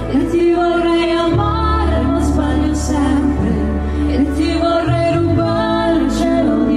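Live pop band playing a slow ballad: a woman singing over keyboards, electric guitar, bass and drums, with a few cymbal hits.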